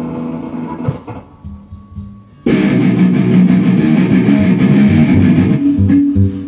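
Electric guitar played through an amplifier: a few single notes, then about two and a half seconds in, loud strummed chords start suddenly and ring for about three seconds before dying away into a few low notes.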